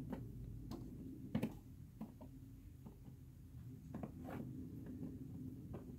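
Hands handling a cardboard box against a wall: scattered light taps, knocks and rustles, the sharpest knock about a second and a half in, over a faint low hum.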